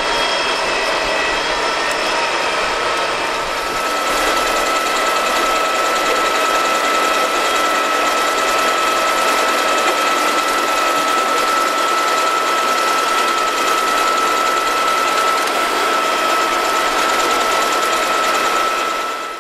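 Tolmac MT12 front-mounted potato lifter and its tractor working through a potato row, a steady loud mechanical running noise with a constant high whine.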